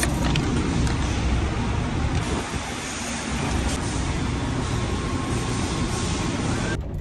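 Steady rumble of a vehicle engine with an even wash of noise over it, a couple of clicks at the start, cutting off suddenly near the end.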